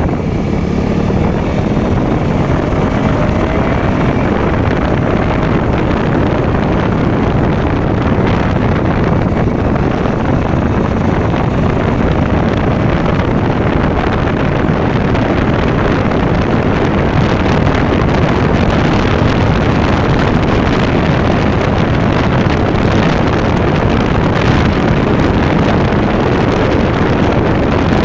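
KTM Duke motorcycle engine and exhaust running steadily under way, with wind rushing over the microphone.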